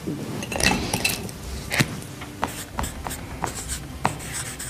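Felt-tip marker drawing on a flip-chart pad: irregular sharp taps and short scratchy strokes as lines and letters are written.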